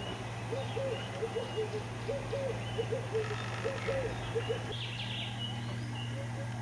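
Southern yellow-billed hornbill calling: a series of short low notes in quick twos and threes, lasting about four seconds. Faint higher chirps of small birds sound behind.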